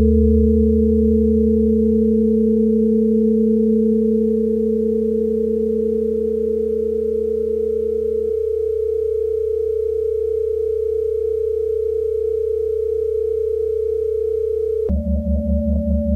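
Acousmatic electronic composition of sustained pure tones over a low drone. The lower of two steady tones drops out about halfway through, and near the end the sound switches abruptly to a new, higher tone over a fast pulsing throb.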